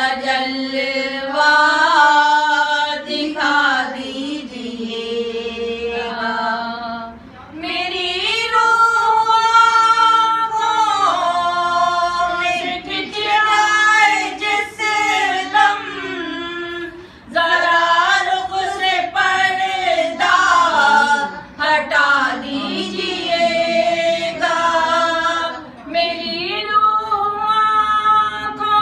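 Women singing an Islamic devotional song (naat) unaccompanied, in long held, gliding phrases with short pauses for breath between lines.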